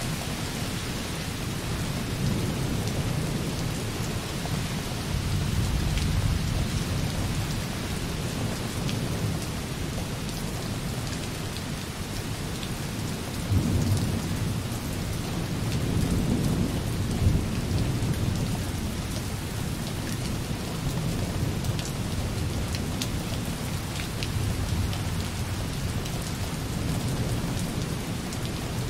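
Light rain falling softly on a window, a steady hiss dotted with single drop ticks, with distant thunder rolling low beneath it. The thunder swells a few seconds in and again for a few seconds past the middle.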